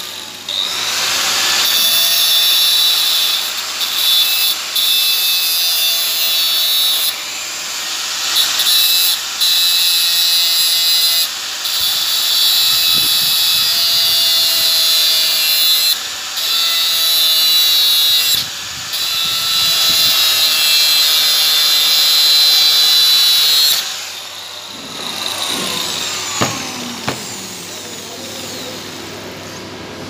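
A handheld electric power tool runs against metal with a loud hiss, in long stretches broken by short pauses, then winds down with a falling whine about 25 seconds in.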